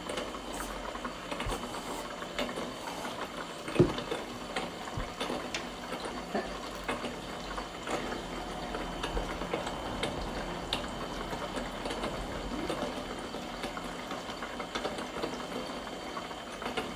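A toy flowing-noodle (nagashi somen) slide machine running: water trickling and circulating through its channel while its small motor whirs steadily. One sharp knock about four seconds in.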